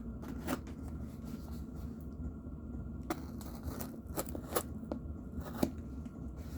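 Handmade Damascus knife being tried on a cutting test: a handful of short, sharp slicing and scraping strokes at irregular intervals over a low steady hum.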